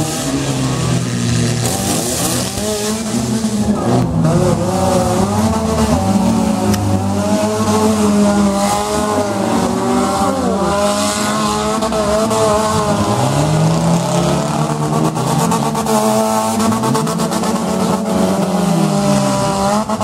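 Several demolition derby cars' engines running and revving at once, their pitch rising and falling throughout.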